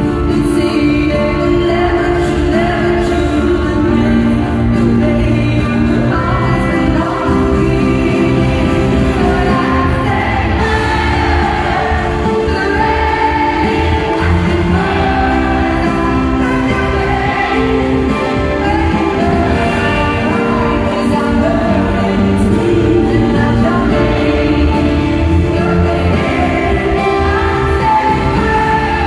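Live concert performance of a pop song: a female singer's voice on a microphone over full band accompaniment, amplified through arena speakers.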